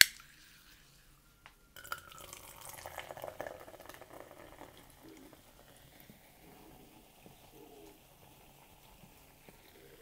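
Coca-Cola poured from a can into a tumbler: a splashing stream starts about two seconds in, falls in pitch and is loudest for the next two seconds, then goes on as a quieter pour.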